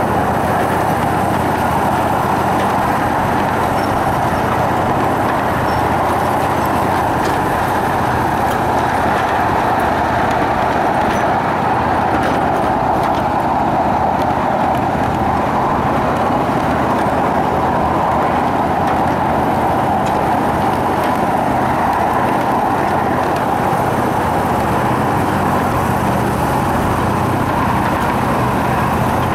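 Steel wheels of a 7.5-inch gauge miniature train rolling steadily along the rails, a continuous rolling rumble with a low steady hum underneath.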